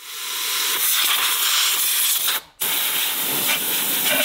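High-pressure cleaning jet hissing steadily while soot is cleaned out of a diesel generator. It cuts out for an instant about halfway through, then resumes.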